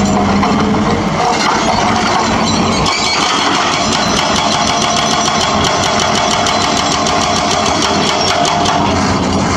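Excavator-mounted hydraulic breaker hammering concrete road slab in rapid, repeated blows over the steady running of an excavator's diesel engine. The blows stand out most plainly from about three seconds in.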